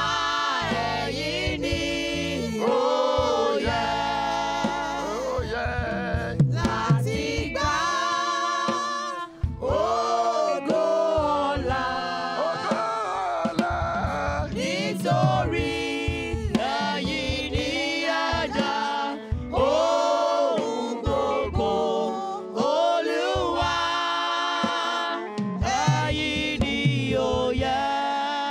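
A gospel praise song sung by a congregation, with a lead voice holding wavering notes above the crowd.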